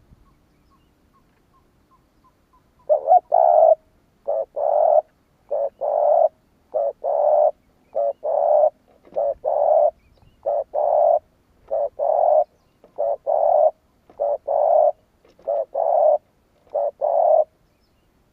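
Spotted dove cooing: a steady series of about a dozen two-part coos, each a short note followed by a longer one, about one a second, starting some three seconds in.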